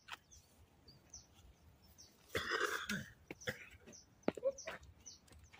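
A man's single short cough about two and a half seconds in, with a few faint clicks and knocks after it.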